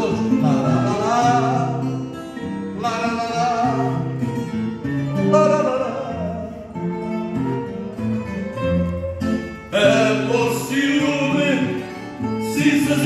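A man singing fado into a microphone, his voice amplified, with guitar accompaniment; the sung notes waver with vibrato.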